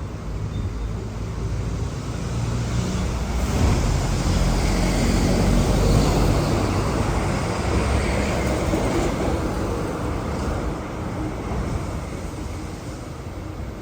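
City street traffic: the engine rumble and tyre noise of a passing motor vehicle swell to a peak about six seconds in, then fade away.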